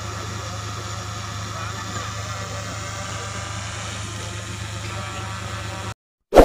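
Open-air ambience: a steady low hum with faint voices in it. It cuts off suddenly about six seconds in, and a loud bell-like ding starts right at the end.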